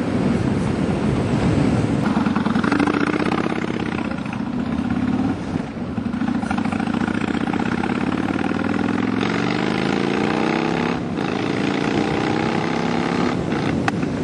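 Kawasaki Vulcan Mean Streak 1600's V-twin engine running under way. Its pitch climbs steadily through the middle of the stretch, with two short dips, about halfway and near the end, as it changes gear.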